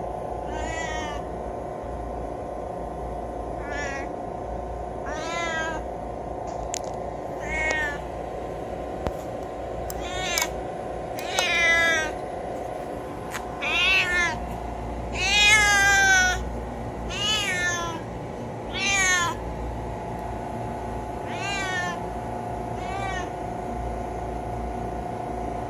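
Street cat meowing over and over, a call every second or two, the longest and loudest ones about halfway through, over a steady hum.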